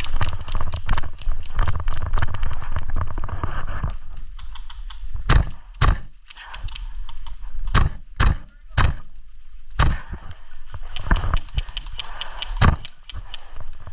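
Tokyo Marui MTR-16 gas blowback airsoft rifle firing about seven sharp single shots at uneven intervals, after a few seconds of rapid footsteps and gear rattle.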